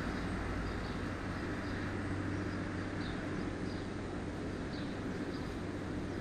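Outdoor ambience under a gathering storm: a steady low rumble, with short high bird chirps scattered through it every second or so.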